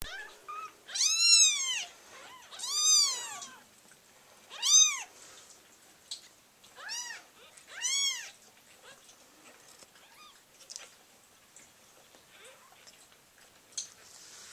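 Newborn kittens mewing: five high cries in the first eight seconds, each rising and then falling in pitch, then only a few faint squeaks.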